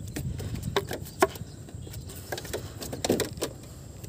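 A few light, irregular clicks and knocks, about six over a few seconds, over a low steady background noise.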